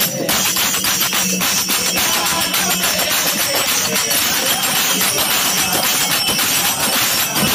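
Marathi devotional bhajan music: jingling small metal percussion struck in a steady rhythm, filling the sound.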